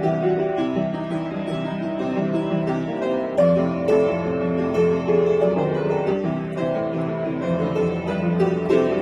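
Upright piano played with both hands: a continuous, lively passage of melody over changing chords in the middle register.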